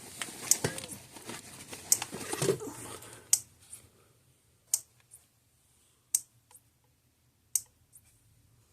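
Repaired Kencove EKD3 electric fence charger pulsing, each pulse a sharp click, about one every 1.4 seconds, six times. Handling and rustling noise over the first few seconds, which then dies away.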